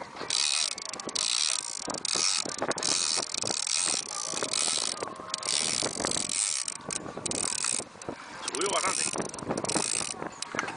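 Heavy conventional fishing reel being cranked in short bursts, roughly once a second, its gears whirring and clicking as a big fish is winched up after a long fight.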